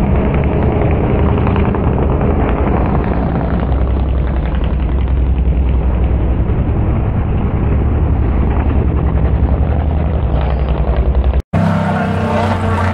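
Engines of a pack of stock pickup race trucks running around the oval, a loud, heavy, distorted rumble on the microphone. The sound drops out abruptly for an instant near the end, then returns clearer.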